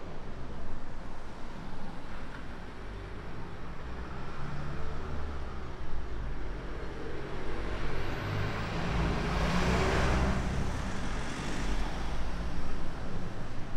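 Road traffic on a street: a steady rumble of cars, with a lorry passing close about two-thirds of the way through, its engine and tyre noise swelling and then fading.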